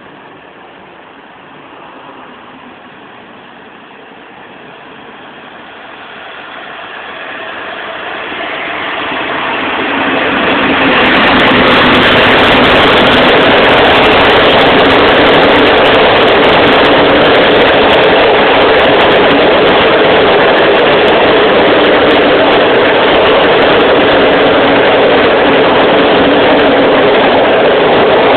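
TLK passenger train passing through a station without stopping. It grows louder over several seconds as it approaches, then the coaches rush past, loud and steady.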